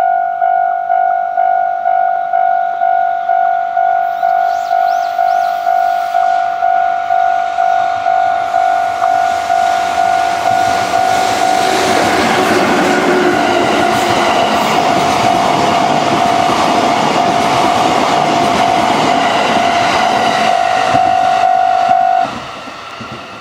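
A Japanese level-crossing warning bell rings its electronic two-tone ding about twice a second. From about ten seconds in, the train passes: an EF66 electric locomotive hauling unpowered E259 series cars, a loud rush of wheel and rail noise. Near the end the bell cuts off suddenly as the crossing clears.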